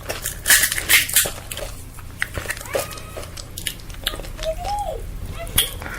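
Crisp fuchka (pani puri) shells crunching as they are bitten and chewed, with sharp crunches loudest in the first second. A couple of short wordless voice sounds follow later.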